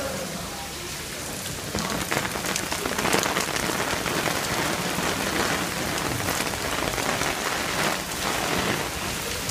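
Heavy rain pouring down and hitting a clear plastic umbrella overhead, a dense hiss of drops that grows louder about two seconds in.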